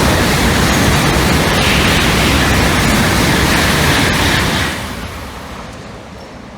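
Tokaido Shinkansen train passing at high speed: a loud rushing noise that holds steady for about five seconds, then falls away quickly near the end.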